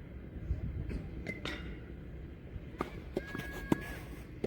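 Tennis rally: sharp knocks of a tennis ball struck by rackets and bouncing on the court, the sharpest near the end. A brief high squeak sounds alongside the later knocks.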